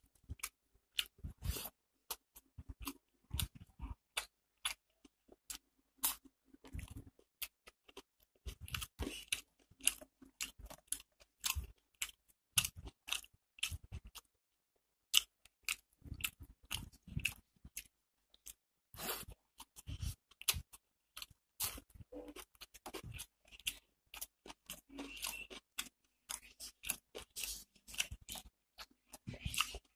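Close-miked chewing and mouth sounds of a person eating rice with fried onion pakora by hand: an irregular run of wet smacks and small crunches, with a brief pause about halfway.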